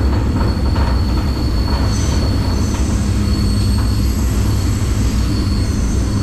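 Freight train rolling, heard from aboard a car: a loud steady low rumble with a thin, high, steady wheel squeal. A few more high squealing tones join about two seconds in.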